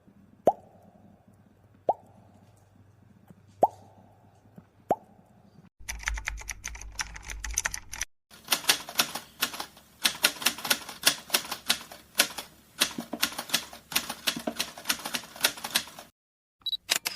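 A run of editing sound effects: four short plops, each a quick upward-sliding pop, spaced a second or two apart. Then, after a brief stretch of low hum with clicks, about eight seconds of rapid key-typing clicks, and a short high tone near the end.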